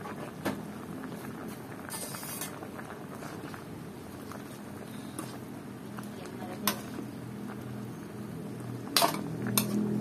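Chicken feet and drumsticks in palo (five-spice) broth bubbling steadily at the boil, while a metal ladle stirs them. The ladle clinks against the pot a few times, the sharpest knocks coming near the end.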